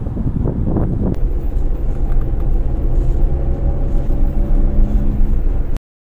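A car driving on a road: engine hum and road noise, with gusts of wind on the microphone at first. The sound cuts off abruptly near the end.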